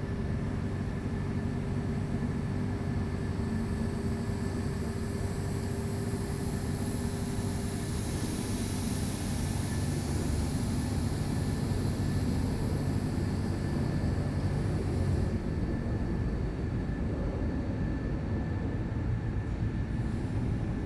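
Mobile crane's diesel engine running steadily, with a high hiss that swells and eases partway through.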